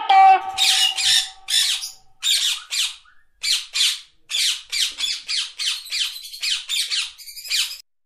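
Parrot squawking: a long series of harsh calls, spaced out at first and coming in quick succession over the second half.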